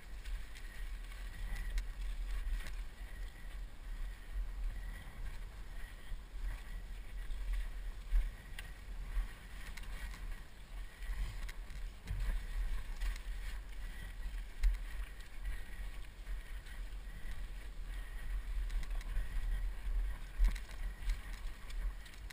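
Mountain bike ridden over a rough, rutted trail, heard through a helmet camera's microphone: a steady low rumble of wind and movement on the mic, with scattered rattles and knocks from the bike and a few louder knocks.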